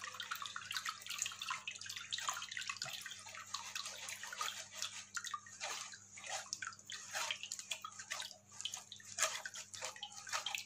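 Fingers rubbing and pressing wet ground almond and poppy-seed paste in a steel sieve, with the strained liquid trickling and dripping into the pot below: irregular wet rubbing and splashing.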